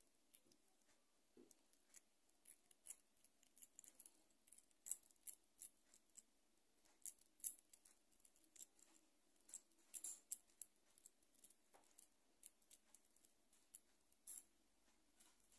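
Faint, irregular wet clicks and smacks of wet fingers pressing and hollowing out a soft bulgur dough shell for içli köfte.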